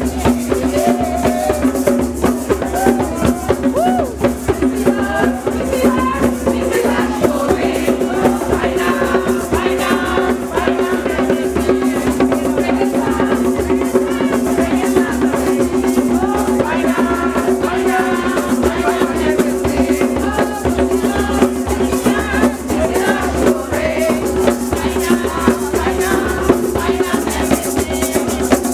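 Kwe Kwe music: goblet-shaped hand drums played in a fast, steady rhythm with shakers rattling along, under group singing.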